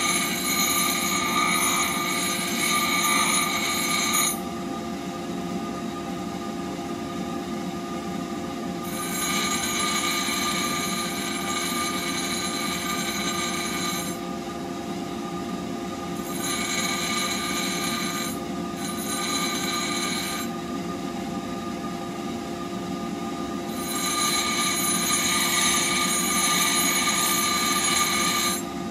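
Bench grinder running steadily while a steel woodturning blade is pressed against the spinning wheel in several separate passes. Each pass gives a high-pitched, ringing grinding whine over the motor's steady hum, which drops back to the bare hum each time the blade is lifted off.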